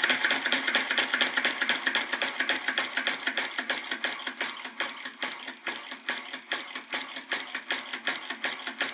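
Retrol VE-01 crossbeam vacuum (flame-gulper) model engine running slowly, with an even clicking several times a second that gradually gets quieter.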